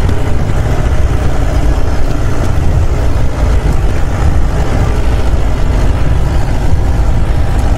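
A Land Rover's engine and road rumble as it drives over a rough, bouldered mountain road, heard from inside the vehicle as a loud, steady low rumble.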